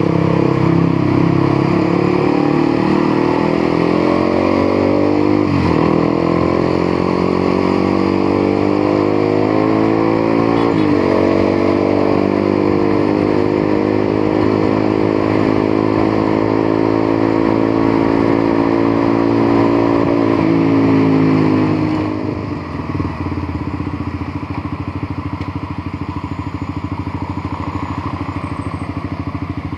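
Motorcycle engine under way, pulling up through the gears: its pitch climbs, drops sharply at a shift about six seconds in and again about eleven seconds in, then holds high and slowly rising. A little after twenty seconds the throttle closes and the engine falls to a lower, quieter steady note.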